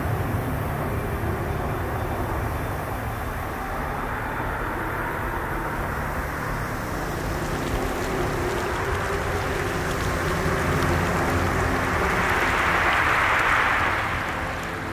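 Edited soundtrack: a low rumbling rush with a few sustained low notes beneath it. The rush swells into a louder whoosh near the end and then drops away.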